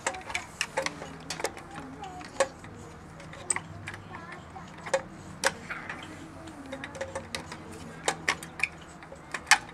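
Scattered sharp clicks and taps of a screwdriver and metal parts as the nut holding a portable generator's air-filter housing is undone.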